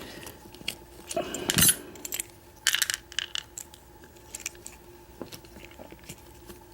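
Small metal lock pins and springs clicking and clinking as they are shaken and tapped out of a Master Lock 141DLF padlock's pin chambers onto a hard surface. There is a louder rattle about a second and a half in and another short burst near three seconds.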